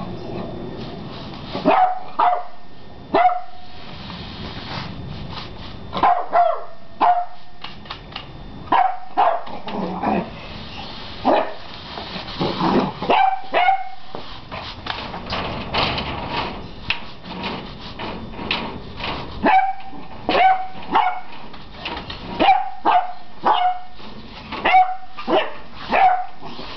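An 11-week-old beagle puppy barking in short, high-pitched bursts, several barks in a row with pauses between the clusters.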